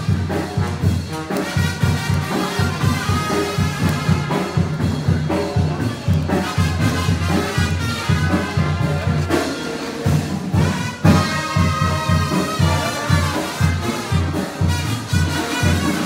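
Tamborazo brass band playing a lively tune: trumpets and trombones over a steady, pulsing bass drum beat.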